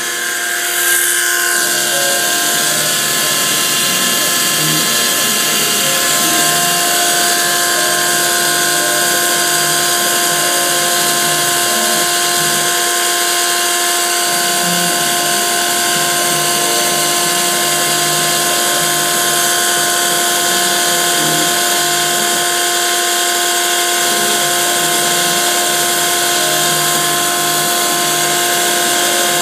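Grizzly G0704 benchtop mill converted to CNC, milling Delrin with an end mill. A steady whine from the spindle and its belt drive runs over the shifting buzz of the stepper motors driving the table through the cut.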